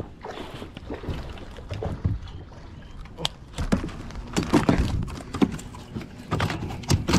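Handling noise aboard a fishing kayak: irregular knocks, clicks and rustles of the rod and gear against the plastic hull, getting louder and busier from about four seconds in.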